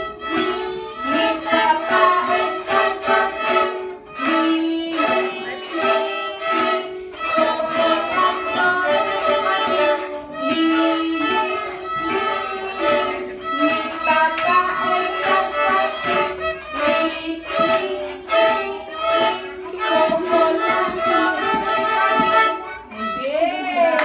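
A group of small violins bowed together, playing a simple tune in steady held notes and short repeated phrases.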